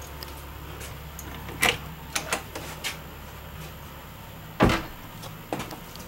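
Interior bathroom door of a travel trailer being opened: a few sharp clicks from the knob and latch about two seconds in, then one loud thump a little past the middle, followed by a few lighter knocks.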